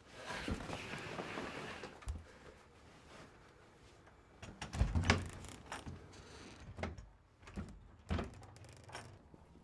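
Rustling, then a few scattered knocks and thuds as something is handled, the loudest about five seconds in.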